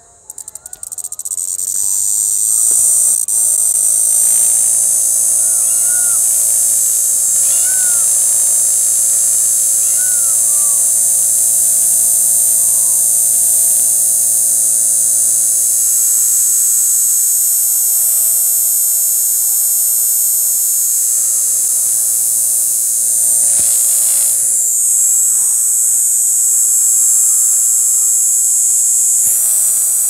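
A cicada singing at close range: it starts with a stutter of rapid clicks and builds within about two seconds into a loud, steady, high-pitched buzz that holds without a break.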